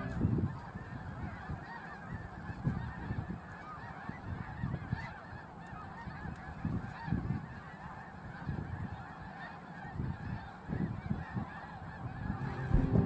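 A large flock of snow geese calling: a dense, unbroken chorus of many overlapping honks, with irregular low rumbles underneath.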